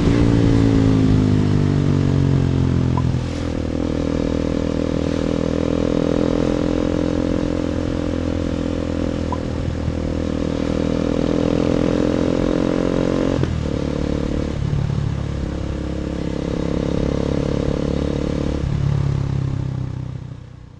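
KTM Duke 250 single-cylinder engine through an Akrapovic exhaust, under way: the revs fall over the first few seconds, then run fairly steady, with a brief dip about two-thirds of the way through. Heavy wind noise on the phone microphone. The sound fades out at the end.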